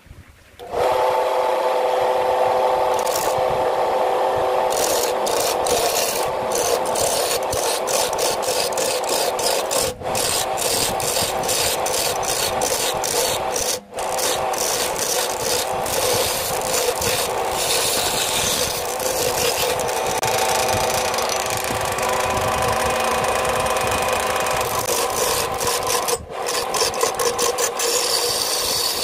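Wood lathe spinning a log while a new, not-yet-sharpened turning chisel made from a coil spring scrapes and cuts into it: a loud, continuous rasping of steel on wood over the steady hum of the lathe. It starts about a second in and breaks off briefly three times as the tool is lifted.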